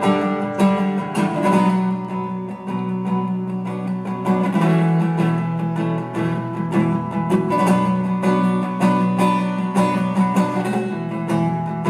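Acoustic guitar strummed in a steady, driving rhythm, the chord changing about four seconds in and again near the end: an instrumental break in a live solo song.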